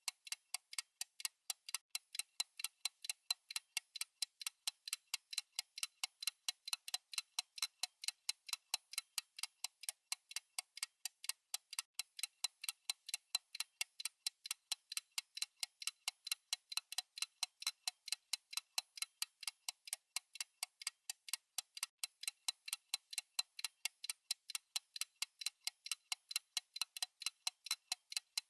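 Fast clock ticking sound effect of a countdown timer: even, sharp, high clicks at about four ticks a second.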